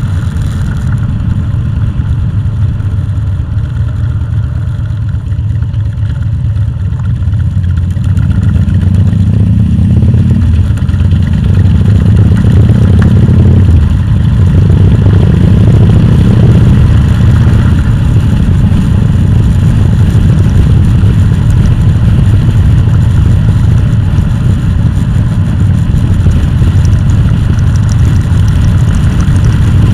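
Vehicle engine running under way, with a steady low drone that swells to a louder level about eight to eleven seconds in, as under acceleration.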